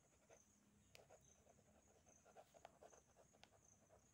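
Faint scratching of a pen writing by hand on paper, a run of short irregular strokes with a few light ticks.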